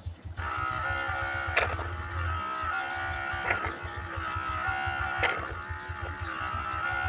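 Background music with sustained melodic notes over a pulsing bass, with a soft beat roughly every two seconds.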